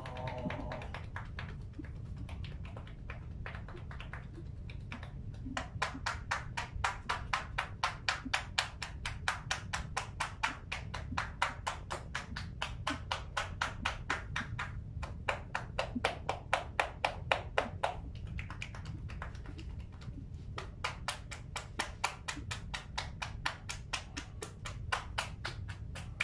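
Shoulder tapping (kata-tataki): hands striking a person's towel-covered shoulders in a fast, even rhythm of about five or six taps a second. It starts about five seconds in and goes in runs with short pauses.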